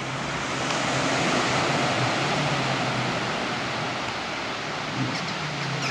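Sea waves washing ashore: a steady rush of surf that swells about a second in and then eases a little, with a faint low steady hum underneath.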